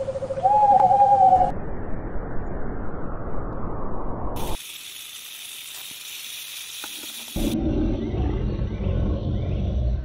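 Short animal-sound clips cut one after another: an owl calling, with a held hoot and a higher call, then a noisy rumble. About halfway through comes a snake hissing for nearly three seconds, then a low rumbling sound.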